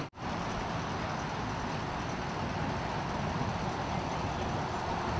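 Steady rumble and hiss of vehicle engines and road traffic, after a momentary break in the sound just at the start.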